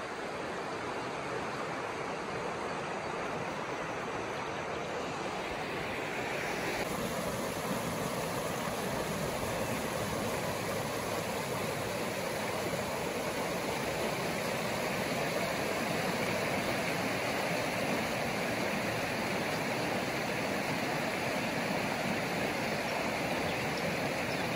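Creek water running steadily, growing a little louder from about six or seven seconds in.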